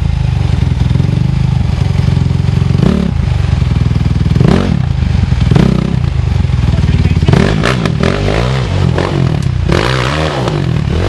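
Dirt bike engine running at low revs with short blips of the throttle, the revs rising and falling more often in the last few seconds as the bike picks its way down a steep rock face.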